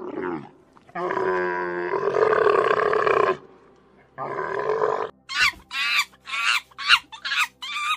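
A dromedary camel's low, drawn-out calls: a short one, then a long one of about two and a half seconds, then another lasting about a second. Then, from just past the halfway mark, chimpanzees give a quick series of short, high-pitched calls, about seven in under three seconds.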